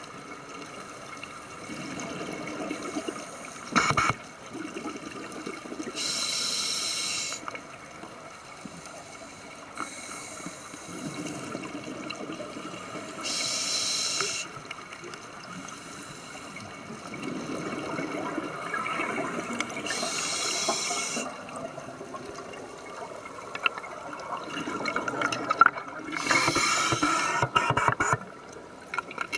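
Scuba diver breathing through a regulator, heard underwater: a short hiss on each breath roughly every seven seconds, with bubbling and gurgling of exhaled air in between.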